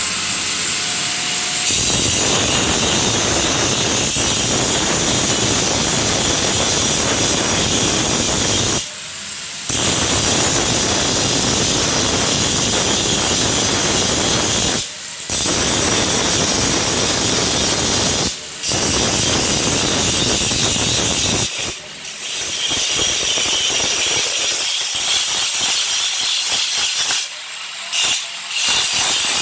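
Angle grinder grinding down weld seams on a steel gate, a loud continuous grinding noise that eases off briefly four times and turns choppier near the end.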